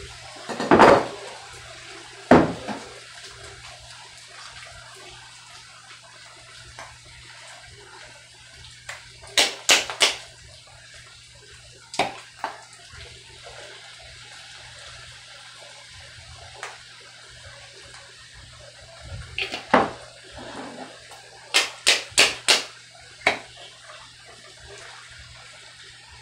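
Pasta sauce jar tapped and knocked against the rim of a hot skillet to shake the sauce out: scattered sharp clicks and knocks, including a quick run of three about ten seconds in and four in a row a little after twenty seconds. Underneath is a steady sizzling hiss from the pan.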